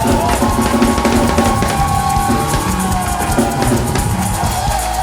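Praise music with a drum kit playing a steady beat of bass and snare under long held tones.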